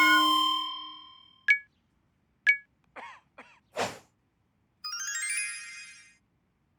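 Cartoon sound effects: a bell-like ding that rings and fades over about a second and a half, two short high pings, a few quick whooshes, then a rising run of sparkly chime notes.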